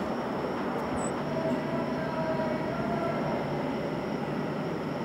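Steady rumbling outdoor background noise, with faint drawn-out whining tones coming in about a second in.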